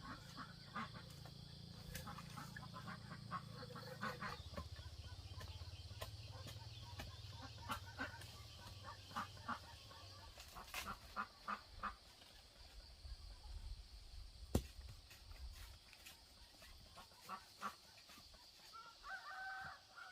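Scattered knocks and rustling over a steady low hum, with a domestic fowl calling near the end.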